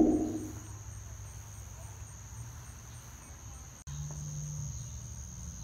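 Crickets trilling steadily, one unbroken high-pitched chirr. A low rumble dies away in the first half-second, and after a sudden break a little before four seconds a faint low hum joins the trill.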